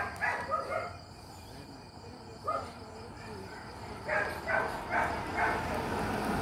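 A car climbing the hill toward and past, its engine and tyre noise growing louder through the second half. Under it runs a steady insect chirr, and there is a run of four short calls about two-thirds of the way through.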